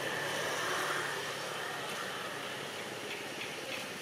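Steady outdoor background noise with a low hum, with faint quick repeated chirps near the end.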